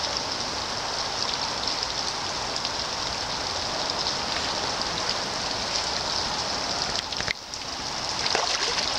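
Steady rushing of a creek's flowing water, an even hiss with no pitched sound, briefly dipping about seven seconds in.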